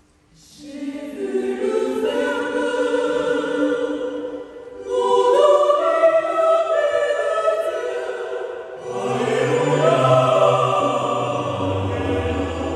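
Choir singing a hymn in parts, coming in about half a second in after a brief silence, breaking briefly near five seconds for a new phrase, with low bass notes joining around nine seconds.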